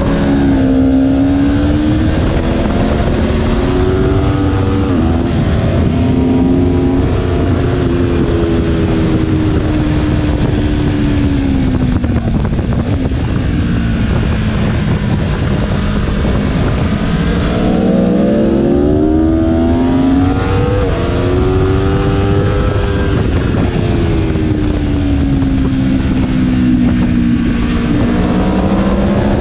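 Aprilia Tuono V4 1100's V4 engine at track speed, pitch falling as the bike slows and downshifts into a corner, then climbing under hard acceleration with a gear change, and falling and rising again near the end. Wind rush on the onboard microphone runs underneath.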